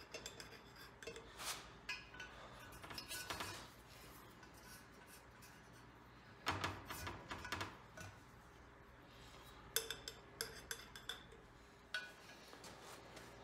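Small metal engine parts being handled: scattered light clinks and rattles, with a few short clusters of metal clatter.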